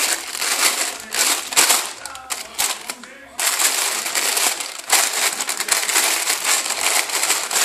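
Thin plastic carrier bag crinkling and rustling as a hand rubs it over a cat lying in it, in near-continuous scrunching strokes with a short pause about three seconds in.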